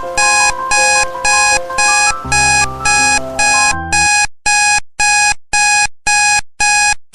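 Electronic alarm beeping: short, loud, identical beeps repeating about twice a second. Soft melodic music plays underneath and ends about four seconds in, leaving the beeps alone.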